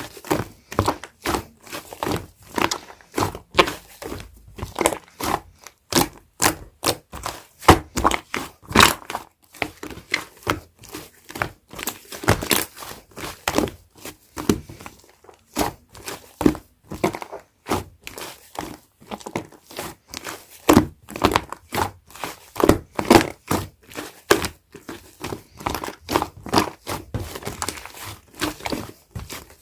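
Hands squishing, pressing and poking soft slime, making an irregular run of short sticky clicks and squelches, several a second.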